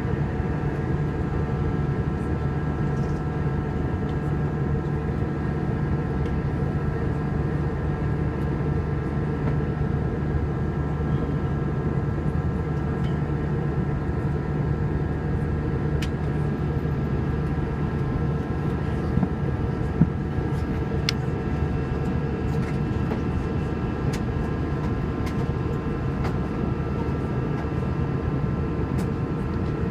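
Steady cabin drone of an Airbus A321 airliner in flight: engine and airflow noise, a deep hum with a set of steady whining tones above it.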